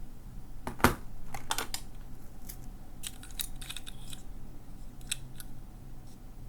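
Irregular light clicks and taps of small plastic parts being handled, the sharpest about a second in, over a faint low hum.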